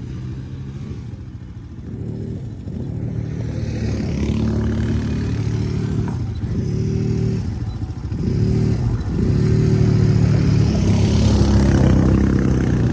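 ATV engine revving up and easing off again and again, about five or six surges in pitch, growing louder toward the end as the quad gets going across the sand.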